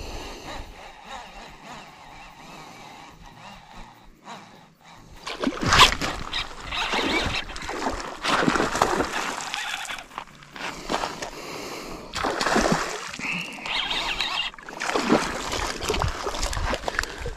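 Hooked northern pike thrashing and splashing at the surface in the shallows as it is reeled in, in repeated bursts starting about five seconds in.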